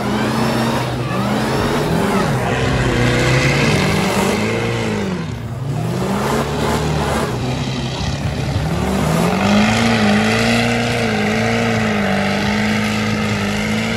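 Mega truck engines revving hard: one engine's pitch rises and falls in a string of quick revs, then climbs and holds high over the last few seconds, above a steady lower engine drone.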